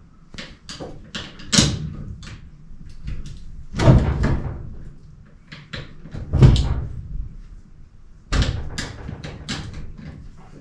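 Steel car roof, cut free from a 1962 Willys wagon body, clanking and knocking as it is shifted by hand on its cut pillars: four louder clanks about two seconds apart, with lighter clicks and taps between.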